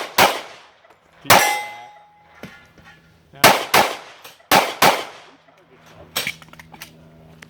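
Pistol shots fired at steel targets: about seven shots, several in quick pairs, with a hit steel plate ringing on after the second shot.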